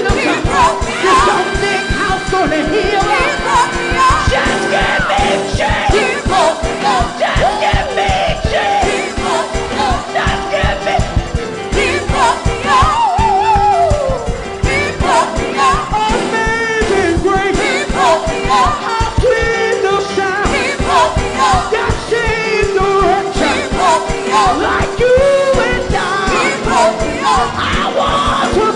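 Gospel choir singing with a live band, drums keeping a steady beat under a held sustained note.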